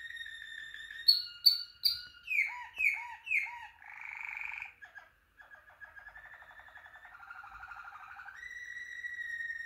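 Malinois Waterslager canary singing a continuous song of held whistled notes and rolling trills. About a second in come three sharp high notes, then three falling glides and a short rasping note. After a brief pause near the middle, the song picks up again with a rolling trill and ends on a long held whistle.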